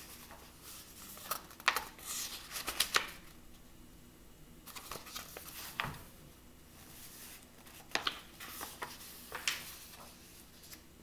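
Paper pages of a paperback coloring book being turned and pressed flat on a table: short rustling swishes of paper in three clusters, with quieter pauses between.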